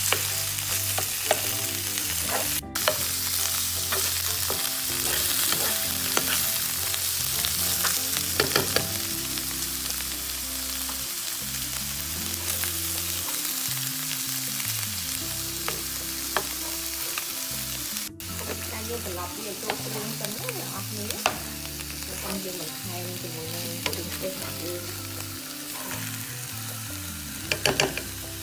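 Catfish pieces coated in a lemongrass spice paste sizzling in hot oil in a frying pan as they are stir-fried, with a spatula scraping through them and now and then clicking against the pan.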